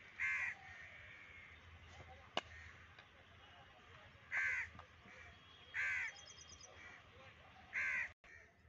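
A crow caws four times: once just after the start, twice in the middle and once near the end, each caw short. About two and a half seconds in there is a single sharp crack of a cricket bat striking the ball.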